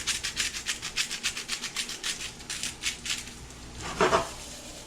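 Salt being shaken out over the pan in quick, even rattling strokes, about six a second, that stop after about three seconds. A single louder clunk follows about four seconds in.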